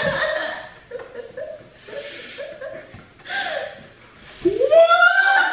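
People stifling laughter: a run of short, held-back chuckles and a couple of breathy snickers through the nose, then a louder vocal sound rising in pitch near the end as the laughter breaks out.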